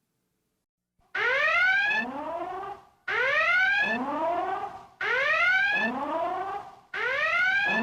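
Star Trek starship red-alert klaxon: a rising whooping alarm tone with many overtones, starting about a second in and repeating about every two seconds, four times.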